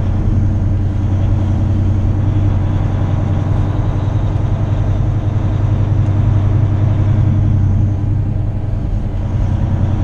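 Semi truck's diesel engine droning steadily at cruising speed, with road and tyre noise, heard from inside the cab.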